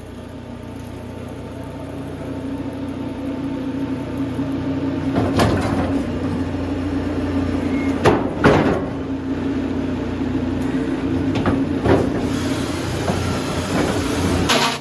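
Sawmill machinery running with a steady hum, building in loudness over the first few seconds, with several sharp knocks and cracks of wood along the way, about five and eight seconds in.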